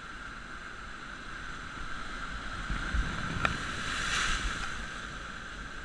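Waves breaking and washing over coastal rocks, the surf swelling to a peak about four seconds in and then easing, with wind gusting on the microphone. A single sharp click about three and a half seconds in.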